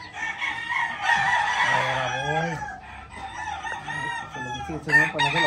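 Gamecock roosters crowing, several long crows overlapping one another, with some clucking.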